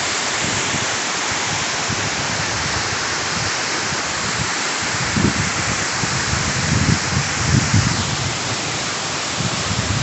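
Waterfall rushing: a steady, loud wash of falling water, with irregular low rumbles in the second half.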